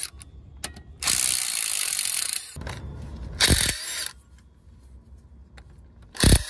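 Small Makita cordless power tool with a socket on an extension spinning out the driveshaft U-joint strap bolts. There is one long run of about a second and a half, then two short bursts, with a few light metal clicks between.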